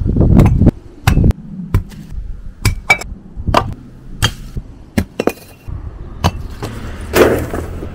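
Bricks being lifted off a motorhome roof and thrown to the ground: a quick series of sharp knocks and clinks, the loudest in the first second and a half.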